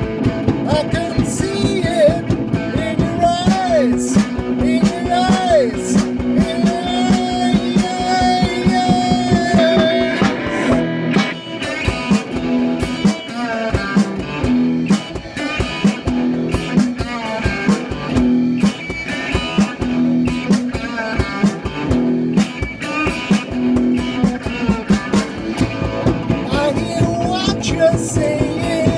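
Bluesy rock-and-roll song played live on acoustic guitar, with a steady rhythm.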